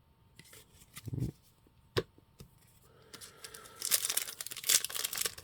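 A foil trading-card pack wrapper being torn open and crinkled, starting about three seconds in and growing louder, after a couple of soft taps of cards being handled.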